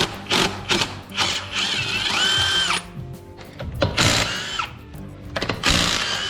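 Bolts being loosened on a car engine: a quick run of ratcheting strokes, then a power tool whining up and winding down twice.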